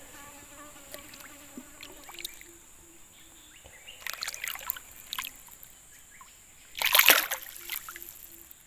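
A hooked tapah catfish splashing at the water's surface beside a boat: a few short splashes about four seconds in, then a bigger splash about seven seconds in.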